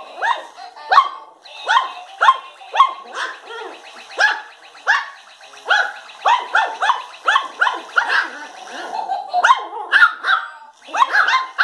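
Yorkshire terrier puppies yapping in play at a mechanical toy mouse: short, sharp barks, about two a second, with a brief lull near the end.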